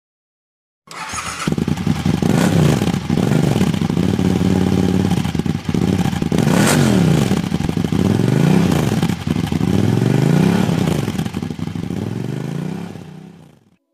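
Motorcycle engine starting abruptly about a second in and revving up and down several times, then fading out near the end.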